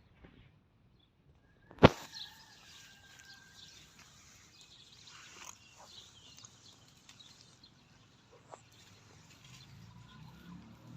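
A single sharp knock about two seconds in, then faint outdoor ambience with scattered small sounds.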